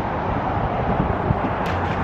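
Steady road and engine noise inside a moving car, an even rush with a low hum underneath.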